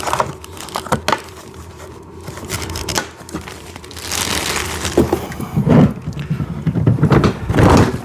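Plastic hubcaps being fitted onto the rear wheels of a kids' ride-on toy car: a run of plastic knocks and clicks, louder and busier in the second half.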